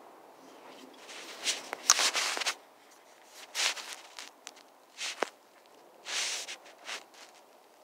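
Short bursts of rustling and scuffing with a few sharp clicks, the loudest cluster about two seconds in.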